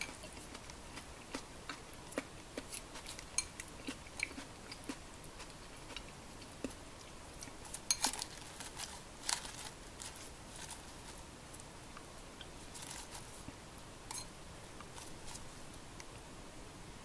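Eating a salad with chopsticks from a glass bowl: scattered crisp crunches of chewing raw vegetables and light clicks of chopsticks picking at the bowl, with a louder cluster of crunches about eight to nine seconds in.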